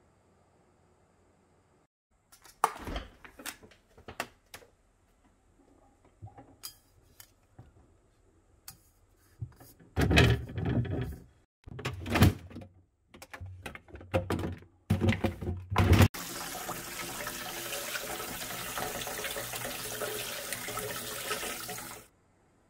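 Refrigerator vegetable drawer and plastic food packaging being handled: scattered knocks, clicks and rustling. Then a kitchen tap runs steadily into a sink for about six seconds and cuts off abruptly.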